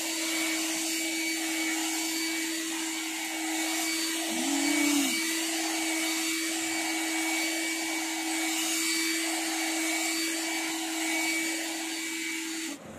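Handheld electric pet grooming dryer-brush running: a steady motor hum with a rushing airflow hiss as it is worked over a dog's coat. It stops abruptly near the end.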